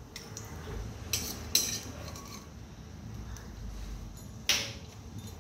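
Metal spoon scraping and clinking against a stainless steel kadhai while scooping out ghee-fried dry fruits, a few sharp clinks, the loudest about a second and a half and four and a half seconds in.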